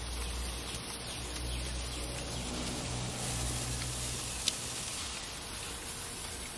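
Chicken sizzling on an open charcoal grill: a steady crackling hiss. A low rumble runs under it for most of the time, and there is one sharp click past the middle.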